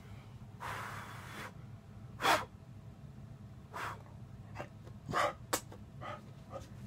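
A few short, sharp puffs of breath or snorts, the loudest about two seconds in, with softer breathy sounds between them.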